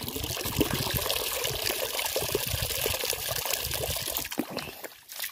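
A stream of water pouring into a large plastic drum already full of water, making a steady splashing that dies down near the end.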